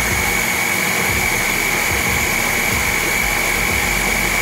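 Ninja blender's motor running steadily under a hand pressing its top, chopping hominy in water, with a steady high whine.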